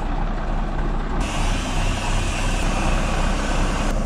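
Heavy diesel truck engine running steadily at low revs. A loud hiss starts abruptly about a second in and cuts off just before the end.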